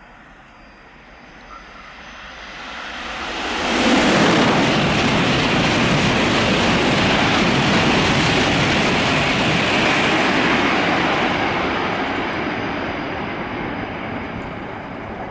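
Shinkansen bullet train passing through the station at speed without stopping: a rush of noise that builds over about four seconds, stays loud for several seconds, then slowly dies away.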